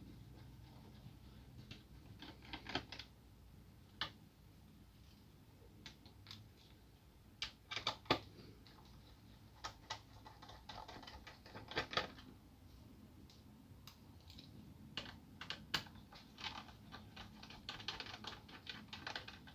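Small screwdriver working the hard-drive mounting screws on a laptop's underside: faint scattered light clicks and ticks, some in quick clusters, as the bit engages and the screws turn loose.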